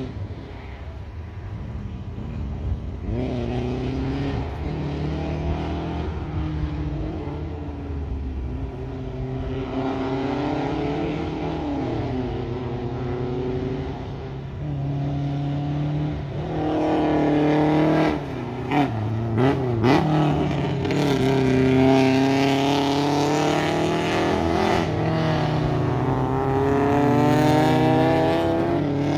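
Triumph Spitfire's four-cylinder engine revving hard on an autocross course, its pitch climbing and dropping again and again through acceleration, gear changes and lifts, louder in the second half. A few short thumps come about two-thirds of the way through.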